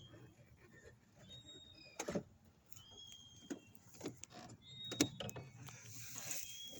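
Scattered clicks and knocks of a long-reach lockout tool working inside a car door pried open with an inflatable air wedge, with a short hiss near the end.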